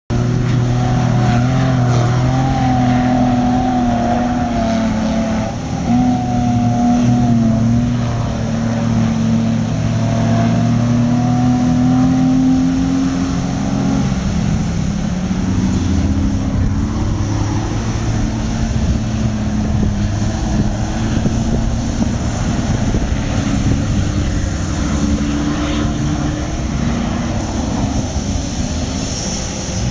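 Off-road 4x4 engine running under load while driving on desert sand. Its pitch holds steady for the first dozen seconds or so, then shifts and wavers.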